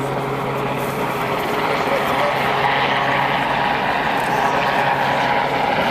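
Royal Navy Sea King search-and-rescue helicopter in flight: steady rotor and turbine noise that grows louder about two seconds in.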